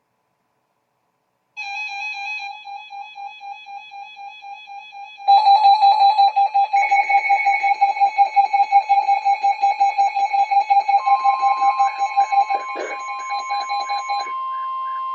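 Emergency alert tones for a flash flood warning: layered electronic alarm beeps pulsing rapidly, starting about a second and a half in and getting louder around five seconds in. A steady higher tone joins near eleven seconds, and there is one brief click near the end.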